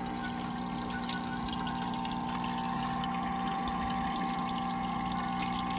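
Turtle tank filter running: a steady motor hum with water trickling.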